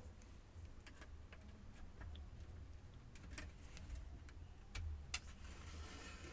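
Plastic laptop case of a Compaq F700 being worked apart by hand: scattered faint clicks and snaps, a sharper click about five seconds in, then a brief scraping rustle near the end.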